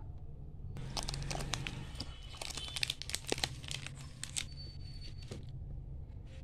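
Wrapped chocolate cream wafer packets crinkling and rustling as a hand handles them: a dense run of crackles starting about a second in and stopping a little before the end.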